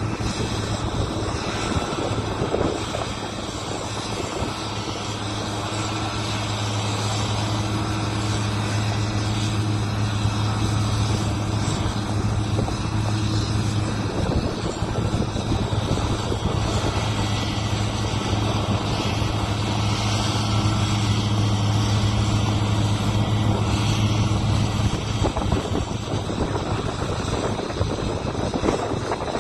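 Combine harvester running steadily during soybean harvest: a strong low engine hum over a noisy rush. The hum drops out about 25 seconds in while the rush continues.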